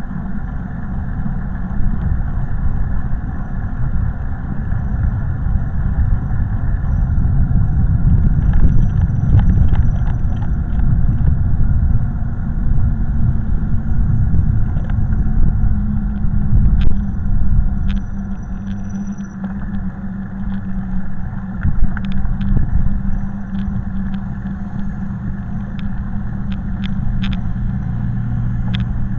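Low rumble of wind and road noise on a camera riding along a street, with scattered clicks and rattles. A steady low hum joins a little over halfway through.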